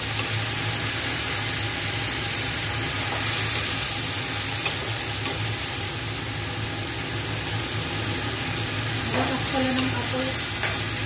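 String beans and eggplant sizzling in hot oil in a wok while being stir-fried, with a steady sizzle and a few sharp clicks of the ladle against the pan, about five seconds in and again near the end.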